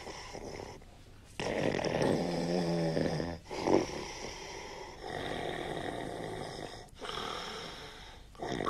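Heavy snoring: a run of rasping snores, one about every one to two seconds, with a deeper, pitched snore around a third of the way in.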